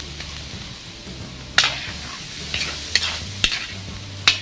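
Carrots and cabbage sizzling in a hot pan as they are stir-fried, with the cooking utensil scraping and knocking against the pan about five times, the last knock the loudest.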